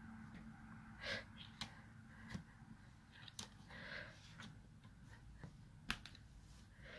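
A few faint, scattered clicks and taps, the first from laptop keys being pressed, with some soft breaths over quiet room tone.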